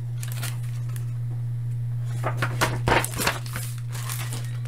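Paper rustling as a picture book's page is turned, a cluster of short rustles about halfway through, over a steady low electrical hum.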